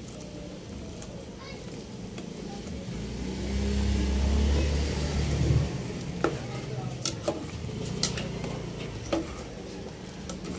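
Pork broth boiling in a stainless steel pot while a metal ladle stirs it. In the second half the ladle clinks sharply against the pot several times. A low rumble swells about three seconds in and stops before six seconds.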